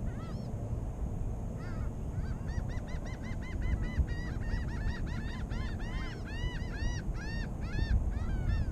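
Birds calling: a fast, steady run of short notes that each rise and fall in pitch, several a second, getting busier about two seconds in, over a steady low rumble.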